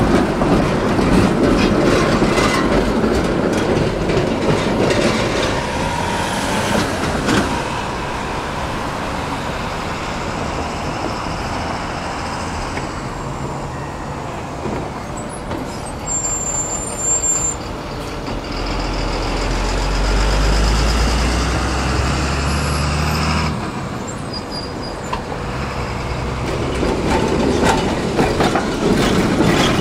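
Tram running on rails with a steady rolling rumble and rail clatter. About halfway through there is a brief high wheel squeal, and near the two-thirds mark a low hum rises for a few seconds, then cuts off abruptly.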